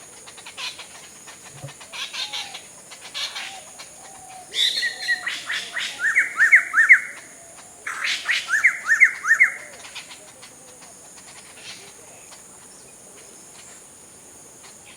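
Many birds calling and chirping together as they gather to roost at dusk. About four seconds in and again around eight seconds come two loud phrases of quick rising notes. A steady high insect buzz runs underneath.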